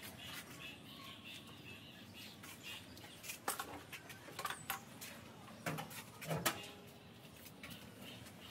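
Small caged birds chirping faintly, with a few scattered clicks and knocks.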